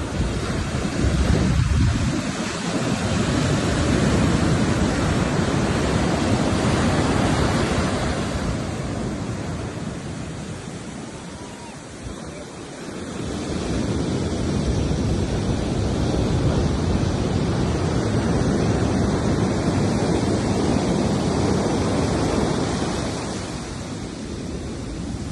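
Sea waves breaking and washing up a beach, with wind buffeting the microphone. The surf swells loud, eases to a lull about halfway through, then builds again.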